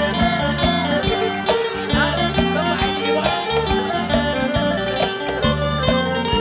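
Isan pong lang folk ensemble playing an instrumental passage: a plucked string melody over a steady bass and drum beat.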